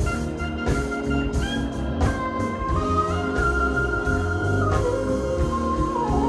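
Live funk band playing an instrumental jam: a heavy bass line and drums under a lead line of long held notes that step up and then back down.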